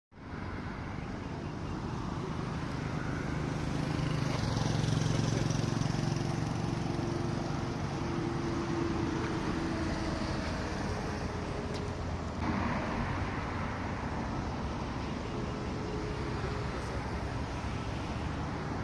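Road traffic noise: a steady rush of passing vehicles, with an engine hum swelling about a quarter of the way in.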